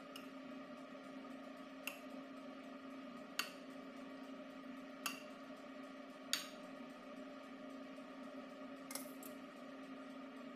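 Metal spoon clinking against a bowl as cooked macaroni is scooped and spread: about six separate sharp taps spaced a second or more apart, the last two close together, over a steady low hum.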